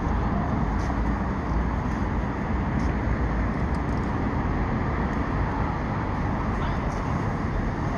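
Steady hum of road traffic, with a few faint ticks.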